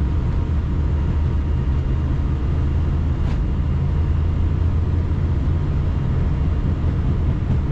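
Steady low rumble of airflow and engines heard on the flight deck of an Airbus A321 in flight, with a faint brief tick about three seconds in.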